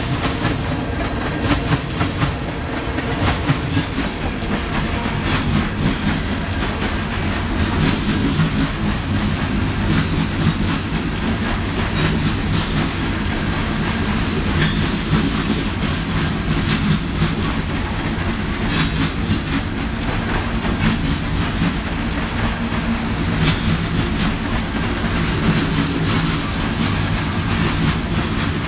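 Railroad cars of a passing train rolling by on the track: a steady low rumble with frequent clicks of the wheels over rail joints, and a few brief, faint wheel squeals.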